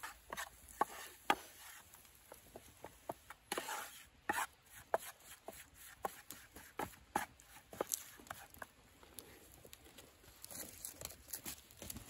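Wooden spatula scraping and knocking in a small frying pan, stirring a butter-and-flour roux, with the wood fire crackling: an irregular run of sharp clicks and short scrapes.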